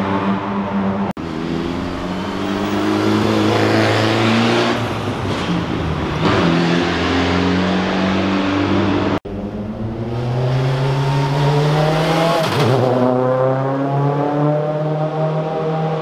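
Rally car engines running at road pace through a road tunnel as the cars pass one after another, the sound echoing off the tunnel walls. The engine pitch rises and falls, and bends down as one car goes by about twelve seconds in. The sound drops out for an instant twice, about a second in and about nine seconds in.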